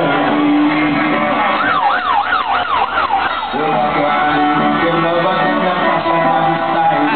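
Loud electronic bass music from a concert sound system. A run of about five quick siren-like sweeps comes around two to three seconds in.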